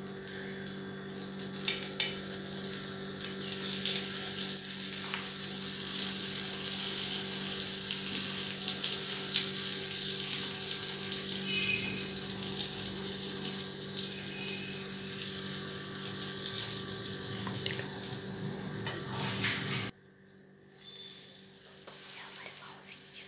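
Butter sizzling on a tawa griddle as pav buns toast in it, a steady crackling hiss. It drops off suddenly near the end, leaving only faint sizzling.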